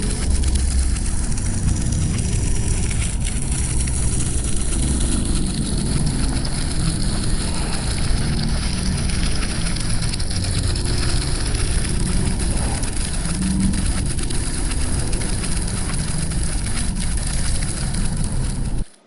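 Fire sound effect: a steady noise of flames burning, heavy in the low rumble, that cuts off suddenly near the end.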